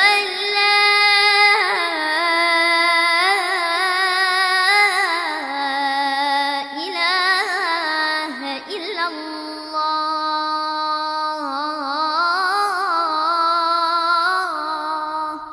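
A boy's high voice chanting the adhan, the Islamic call to prayer, in one long drawn-out phrase whose pitch winds up and down in ornaments, fading away near the end.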